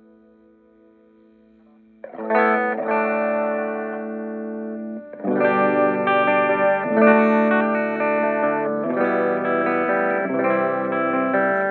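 Les Paul electric guitar with humbucker pickup played through an Orange Micro Terror hybrid valve-preamp amplifier and its 8-inch Orange cabinet, with distortion from the amp's own gain. A faint held note fades at first; about two seconds in a chord is struck and rings, and from about five seconds in louder chords are strummed, changing every second or two.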